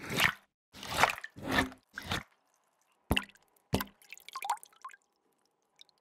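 Cartoon sound effects of an ink pen: four short scratchy strokes as it draws, then two sharp ink drips about three seconds in and a quick run of small liquid plops as the ink splatters.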